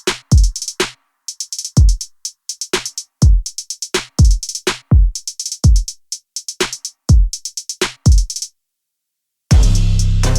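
Electronic background music: a drum-machine beat of deep kick drums and hi-hats. It drops out for about a second near the end, then comes back with a loud, deep bass line.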